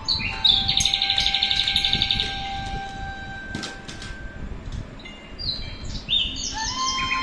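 Birdsong-like chirps and a rapid high trill about a second in, mixed with held flute-like notes, as in a background music track.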